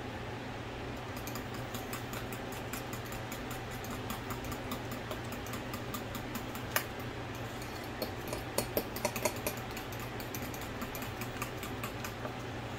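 A spoon stirring a thick mayonnaise dressing in a small bowl: rapid small clicks and scrapes of the spoon against the bowl's side, with a few louder knocks about eight to nine seconds in. A kitchen fan hums steadily underneath.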